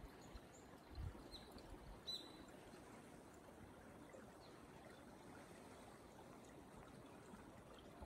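Faint mountain stream trickling under and between ice and rocks, a soft steady wash of water, with a couple of brief high chirps in the first few seconds.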